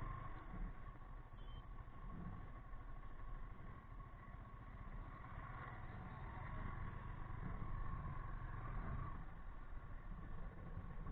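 Yamaha R15 V3 motorcycle's 155 cc single-cylinder engine running as the bike is ridden, with a steady low rumble of wind and road noise on the camera microphone.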